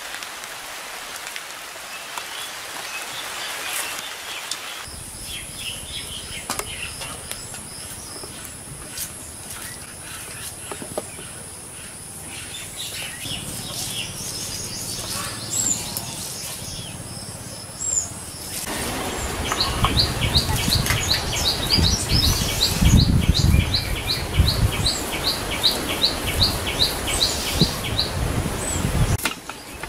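Onions and ginger being crushed on a sil-pata, a flat grinding stone worked with a stone roller: uneven low rumbling that grows louder about two-thirds of the way in. Birds chirp over it, and in the last part a regular high tick comes about twice a second.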